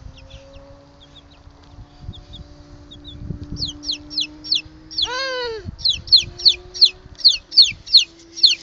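Chickens calling: short high falling peeps, sparse at first and then coming about three a second in the second half, with one louder drawn-out call about five seconds in. A faint steady hum lies underneath.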